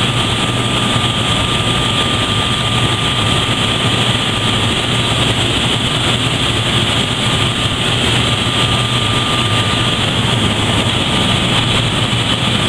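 Sump pumps running in a sump pit with water churning below them: a loud, steady mechanical drone and rush of water, with a low hum and a thin, steady high whine over it.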